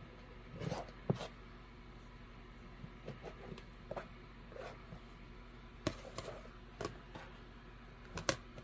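Rotary cutter slicing through cotton fabric along an acrylic ruler on a cutting mat: a few short rasping cuts, with scattered light clicks and taps as the ruler and cutter are set down and moved.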